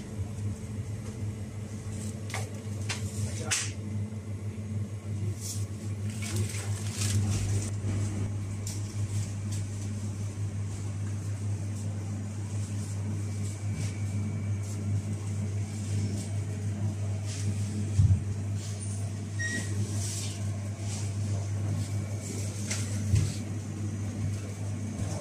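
Steady low hum of supermarket freezer-cabinet refrigeration, with scattered faint clicks and rustles and two short knocks, one a little past the middle and one near the end.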